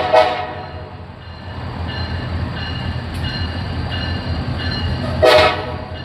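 Approaching diesel freight locomotives, engines rumbling low, sound a short horn blast right at the start and another about five seconds in. A bell dings steadily, about twice a second, between the blasts.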